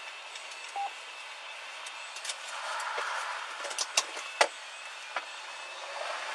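Steady cabin noise inside a parked police cruiser, swelling for about a second as traffic passes, with a couple of sharp clicks about four seconds in.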